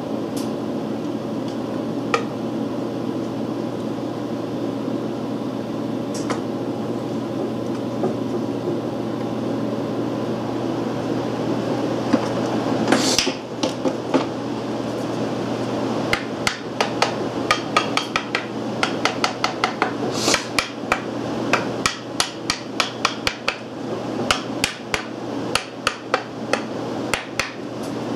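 Sharp metal clicks and light taps from hand work on the ignition plate of an antique Briggs & Stratton PB engine. They begin with a single loud click about halfway in and come a couple a second towards the end, over a steady low hum.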